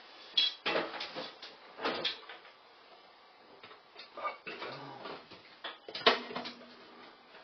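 Replacement blower motor knocking and scraping against the exhaust fan's metal housing as it is pushed up into the ceiling duct: a few irregular clunks and rattles, the loudest about six seconds in.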